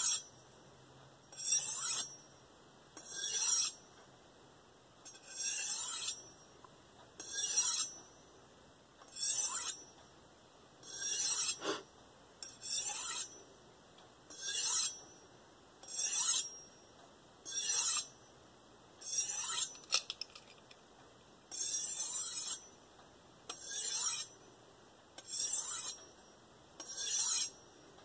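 Steel santoku blade swiped along an Idahone ceramic honing rod, about one stroke every one and a half seconds: each stroke a short rasping hiss with a faint falling ring, and one sharp click near the middle. This is the final apexing and burr-removal stage of the sharpening.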